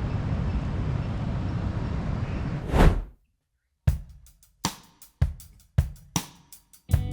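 A steady rushing noise ends with a sudden loud hit just under three seconds in. After a second of silence, background music starts with a drum-kit intro of sharp hits about twice a second.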